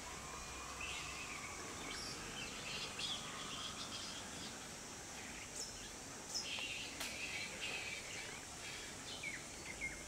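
Several wild birds calling and chirping in short scattered calls, with a few quick downward-sliding whistles, over a steady outdoor hiss.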